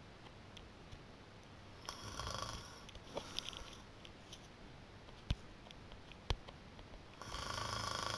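A person snoring in sleep: two snores about a second long each, roughly five seconds apart, with two sharp clicks in the quiet between them.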